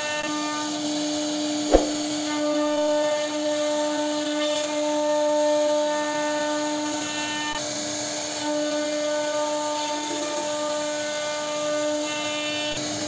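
CNC router spindle running with a steady whine as its bit carves curved grooves into a wooden door panel. A single sharp click about two seconds in.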